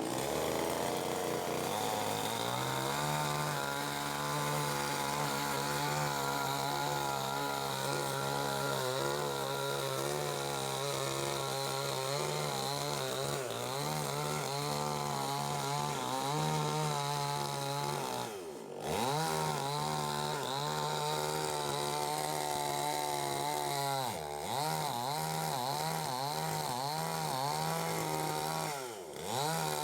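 Chainsaw running steadily while cutting a dead tree's wood. Its engine note wavers under load and dips briefly three times, in the middle and toward the end.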